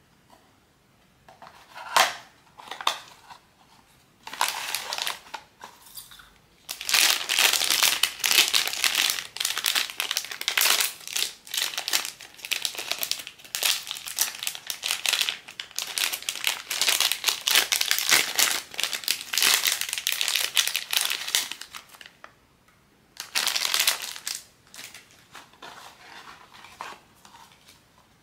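Blind-box packaging being handled and opened, its wrapper crinkling. A few sharp handling clicks come first, then about fifteen seconds of continuous crinkling, then a shorter burst of crinkling near the end.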